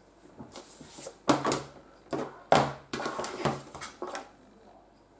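Paper and a stamping mat being handled and laid down on a tabletop: a run of short rustles and knocks, the loudest just over a second in and about halfway through.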